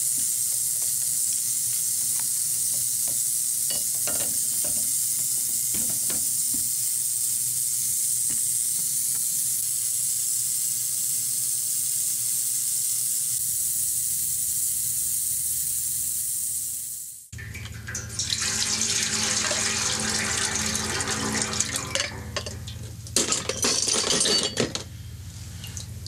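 Ultrasonic cleaner running a rinse cycle in distilled water with a steady high-pitched hiss from the cavitating water around the gun parts. It cuts off abruptly about 17 seconds in. Water splashing and a few sharp clinks follow.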